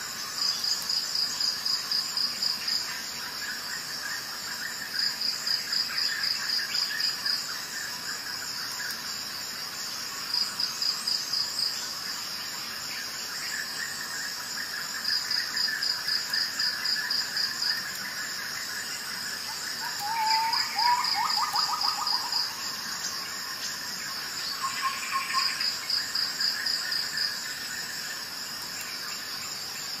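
Insect chirping in fast pulsed trills, each bout about two seconds long, repeating about every five seconds. A short run of lower chirps comes about two-thirds of the way in.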